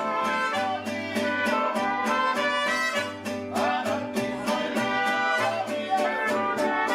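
Background music: upbeat bluegrass-style tune with plucked banjo and guitar at a steady beat.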